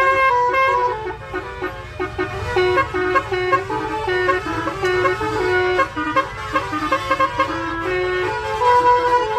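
A telolet musical horn playing a quick run of stepped notes, a repeating melody, over a low rumble.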